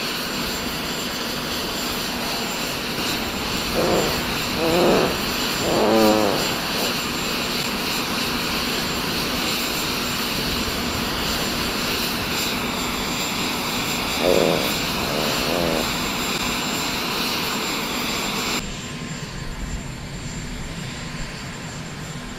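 Steady roar of aircraft engine noise with comic fart sound effects laid over it: three fluttering ones in quick succession a few seconds in, and two more about two-thirds of the way through. The roar drops to a quieter hiss near the end.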